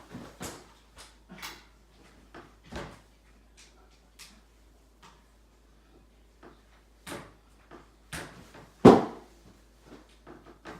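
Scattered clicks and knocks of G3/CETME rifle parts being handled as a pin is worked back into place, with a louder knock about nine seconds in.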